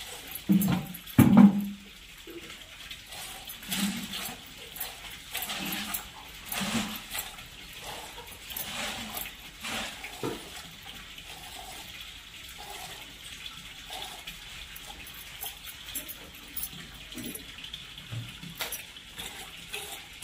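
Milking by hand: milk squirting from the teats into a small bowl in short hissing spurts every second or two. A few dull low thumps come in between, the loudest about a second in.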